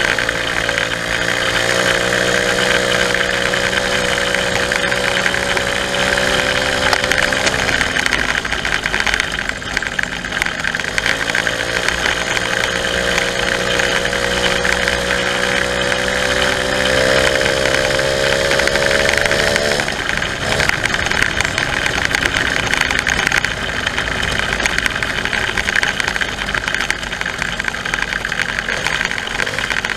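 Small two-stroke moped engine running under way, its pitch climbing slowly as the bike gathers speed, dropping off about eight seconds in, climbing again until about twenty seconds, then easing back to a rougher, lower drone. A steady high hiss runs underneath.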